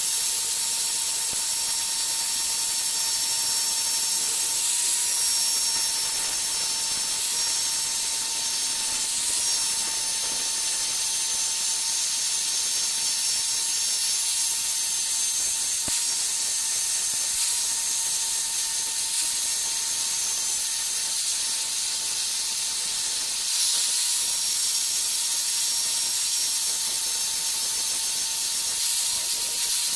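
Angle grinder running steadily, its disc grinding rust off a steel knife blade: a constant high motor whine over a hissing scrape.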